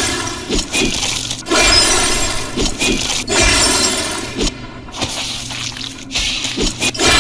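Ice-power sound effect: repeated crackling, glassy shattering bursts, each starting suddenly and fading over a second or so, about every one and a half to two seconds.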